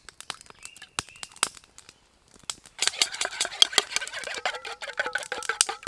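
A wooden stick beating egg in a metal camping pot, for an egg wash. A few scattered taps come first; about halfway in it becomes a fast, continuous clatter against the pot, which rings with each stroke.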